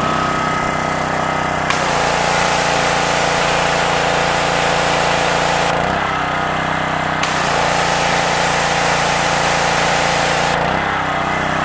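Subaru-engined 2700 PSI gas pressure washer running steadily, with the hiss of the high-pressure spray from the wand coming on twice: from about two seconds in to near the middle, then again until just before the end. The engine runs smoothly, its carburetor freshly cleaned of a sticking valve.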